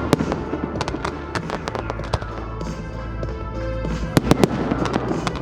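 Fireworks going off in a rapid series of bangs and crackles, with a loud cluster of bangs about four seconds in, over music playing with the display.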